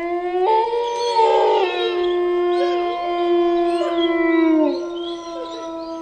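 A pack of wolves howling in chorus: several long, overlapping howls held at different pitches, starting suddenly. The lowest howl dips in pitch a little before the end.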